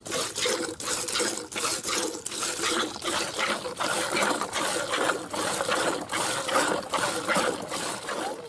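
A cow being milked by hand: jets of milk squirting from the teats in a quick, steady rhythm of about three to four squirts a second.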